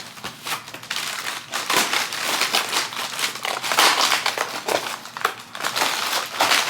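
Crinkling and crackling of paper and packaging as advent calendar doors and their contents are torn open and unwrapped, in a quick irregular run of rustles.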